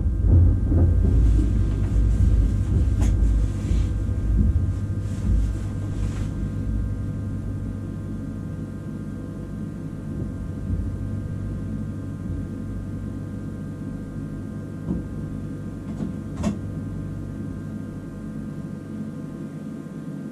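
SNCB AM08 Desiro ML electric multiple unit standing at a platform: its onboard equipment gives a low rumble with a steady mid-pitched whine, slowly fading, and a couple of faint clicks.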